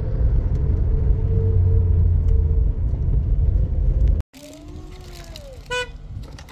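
Steady low road rumble inside a moving car's cabin, cut off suddenly about four seconds in. A much quieter outdoor scene follows, with a few short gliding calls.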